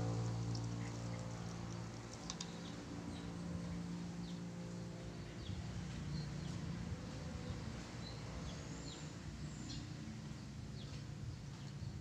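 Cat chewing and crunching on fish bones and leftovers, small irregular clicks, over a steady low hum that is loudest in the first few seconds and fades after about five seconds.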